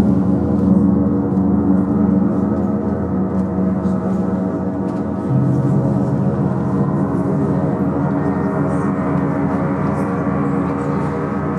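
Large hanging UFIP gongs ringing together in a dense, sustained wash of overlapping tones. About five seconds in, a fresh stroke on one gong adds a deeper tone.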